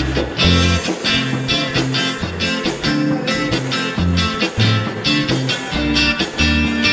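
Small live band playing an instrumental cha-cha, with a steady bass guitar line under acoustic guitar, keyboard and drums.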